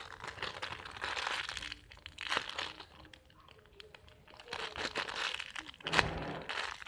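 Clear plastic packaging crinkling as the homemade squishy sealed inside it is handled and pressed. It comes in two spells with a quieter stretch between them, and there is a sharp crackle about six seconds in.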